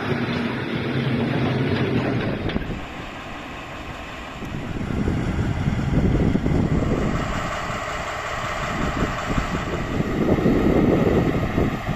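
SM42 diesel shunting locomotive running as it hauls an unpowered steam locomotive, with wheels on the rails. The sound changes abruptly about two and a half seconds in, then swells and fades in slow waves.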